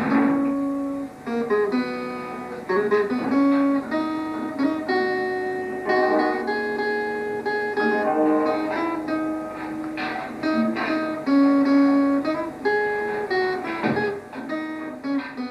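Acoustic guitar played solo: a picked melody of single notes mixed with chords, each ringing out and fading.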